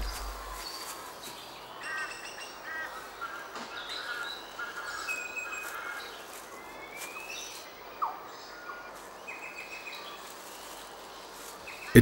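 Rainforest ambience: assorted small birds chirping and calling, with scattered short high notes and trills over a faint hiss, and one louder upswept note about eight seconds in.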